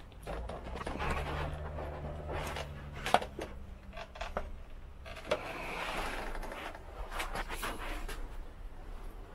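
Rubbing and clicking of a Trek Domane's carbon fork and headset parts being handled and slid out of the head tube, with a few sharp knocks, the loudest about three seconds in.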